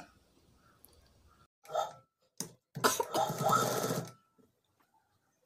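Sewing machine stitching in short spurts: a brief run about one and a half seconds in, a click, then a longer run of about a second and a half, stopping about four seconds in.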